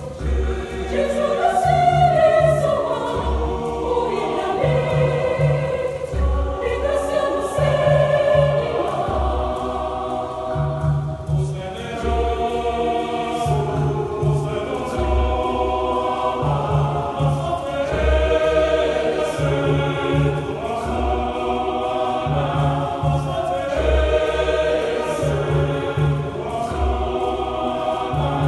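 Large mixed church choir singing in harmony, conducted, with hand drums keeping a steady repeating beat underneath.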